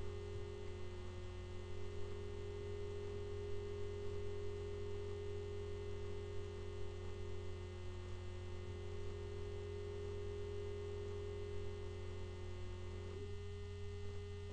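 Steady electrical hum: a low drone with a higher buzzing tone over it, unchanging for most of the time, the higher tone shifting slightly near the end.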